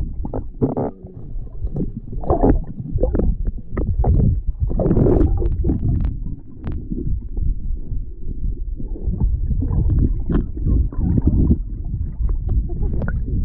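Low, uneven rumble of wind buffeting the microphone, with scattered knocks and rustles of handling.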